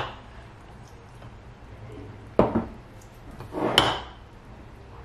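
Filled glass mason jars being set down and knocked against each other on a countertop as they are moved: three sharp clinks, one at the start, one about two and a half seconds in and one just before four seconds that rings on briefly.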